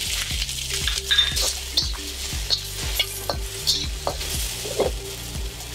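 Chicken pieces sizzling in a very hot steel wok while a metal spatula stirs them, scraping and tapping against the pan about three times a second.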